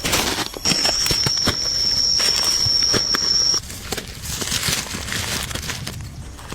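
Scattered knocks and clicks of hands working materials, with a steady high-pitched whine that starts about a second in and cuts off suddenly after about three seconds.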